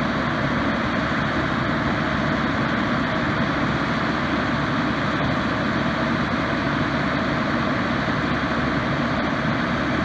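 A 1995 Nova Quintech aerial ladder truck running steadily while its pump feeds the water stream from the raised ladder's nozzle: an even engine and pump rumble under a steady rushing noise, with no change in speed.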